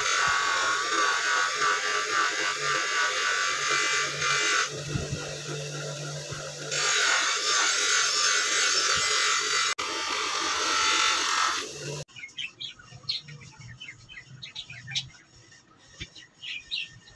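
Electric bench grinder running with a steel cleaver blade held against its spinning wheel: a steady motor hum under a loud hissing rush of metal on the wheel. The hiss drops away for about two seconds midway, then returns. The grinder sound cuts off suddenly about twelve seconds in, and birds chirp faintly after that.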